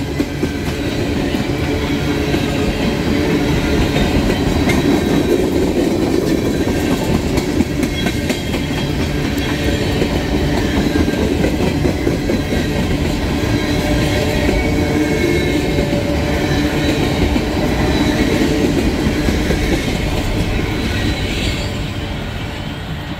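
Freight train tank cars rolling past close by: a steady rumble of steel wheels with clickety-clack on the rails, fading away near the end as the last cars go by.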